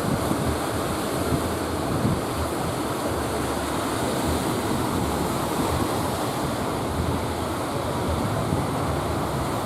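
Rough sea surf breaking and washing steadily, with wind buffeting the microphone.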